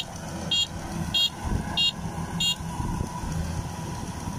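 Kubota DC93 combine harvester's diesel engine running steadily, with five short, high electronic beeps from its warning buzzer, evenly spaced, a bit under two a second, over roughly the first half.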